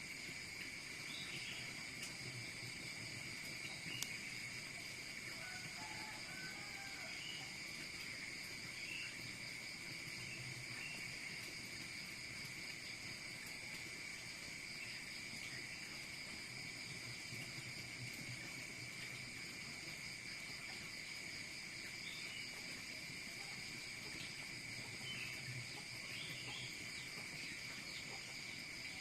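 Steady, unbroken insect chorus, like crickets trilling, with scattered short chirps over it and a single faint click about four seconds in.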